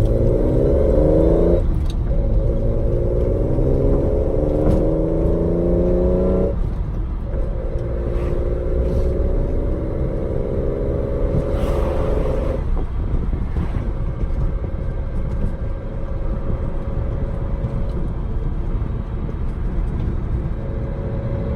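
Datsun 260Z's straight-six on triple Mikuni carburettors accelerating through the gears: the pitch rises in three pulls, broken by gear changes at about two and seven seconds in, then the engine settles to a steadier cruise from about halfway. Heard from inside the cabin.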